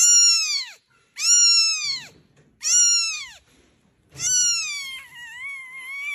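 Very young kitten mewing: four high-pitched cries, each falling away at its end, the last drawn out and wavering.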